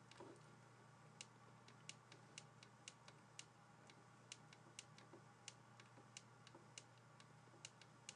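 Faint, irregular clicks and taps of a stylus on a writing tablet during handwriting, about two to three a second, over a faint low hum.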